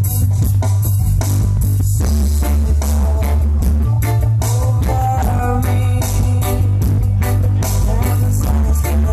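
Loud rock music with guitar, heavy bass and drums played through a large outdoor sound system, the deep bass dominating.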